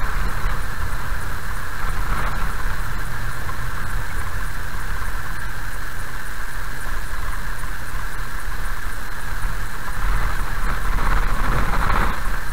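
Steady road noise inside a car driving slowly on a gravel road: low engine and tyre rumble under a constant higher hiss, a little louder near the end.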